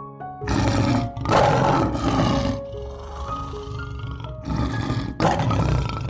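Loud, rough animal calls in about four bursts, the longest lasting over a second, over soft piano background music.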